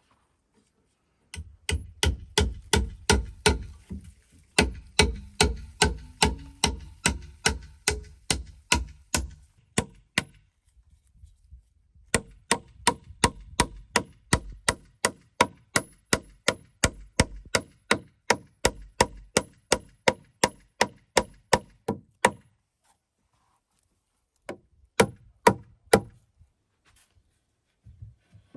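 A hand tool striking wood in quick, regular blows, about four a second, in two long runs with a pause between and a few last blows near the end.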